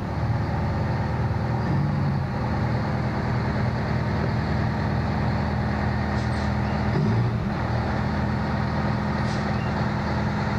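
Fire engine's motor running steadily as the pumper rolls slowly up alongside the hydrant.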